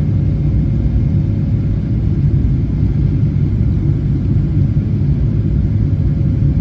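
Airliner cabin noise: the steady low rumble of jet engines and airflow heard from inside the cabin, with a faint steady tone above it.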